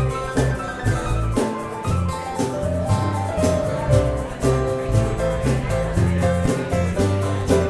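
Music with a steady beat: drums and percussion over a bass line and held melodic notes.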